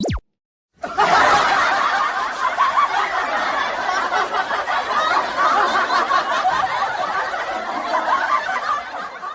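A brief falling-pitch sound effect, then a group of people laughing without a break for about eight seconds before fading out: a canned laughter clip.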